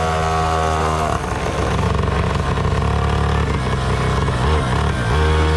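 Small two-stroke engine on a motorized drag bicycle running through an aftermarket racing exhaust, its note changing about a second in.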